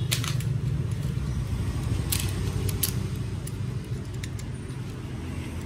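A few sharp metal clicks and clinks from a small hand tool being handled, its loose part having fallen out, over a steady low hum.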